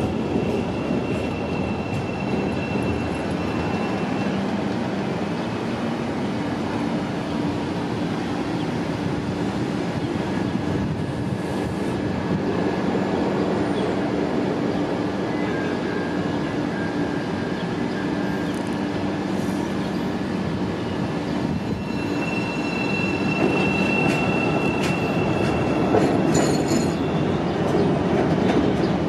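CTA 'L' rapid-transit train running on the rails, a steady noise throughout, with a thin high wheel squeal near the start and again near the end. A few sharp clicks come shortly before the end.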